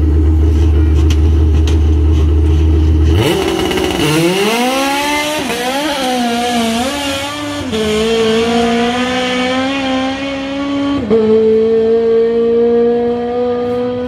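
A drag car launches about three seconds in after a loud steady drone. Its engine then revs hard down the strip, the pitch climbing and breaking at gear changes around eight and eleven seconds in.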